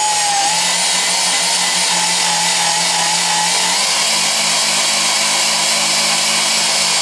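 Electric drill on slow speed spinning the Lee Quick-Trim case trimmer's power adapter, its cutter trimming a brass cartridge case to length: a steady whir that cuts off suddenly at the end.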